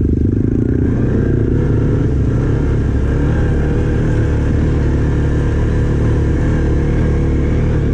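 Quad bike engine running steadily under way, with a constant low rumble from the machine moving over rough ground.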